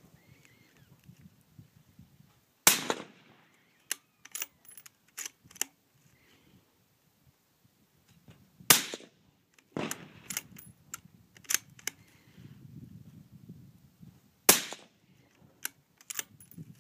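Suppressed .223 bolt-action rifle fired three times, about six seconds apart. After each shot come several sharp clicks as the bolt is worked to chamber the next round.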